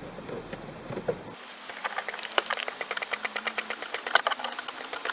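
A screwdriver clicking as it turns a screw in the plastic trim at the top of a car's glovebox opening: a fast, irregular run of sharp clicks, several a second. It starts after a low background rumble that cuts off about a second in.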